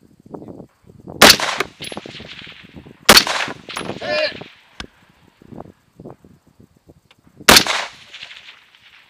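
A scoped JP15 AR-15-pattern rifle firing three slow, spaced shots at a small long-range steel target. The first comes about a second in, the next about two seconds later, and the last after a gap of about four seconds. Each report has a trailing echo.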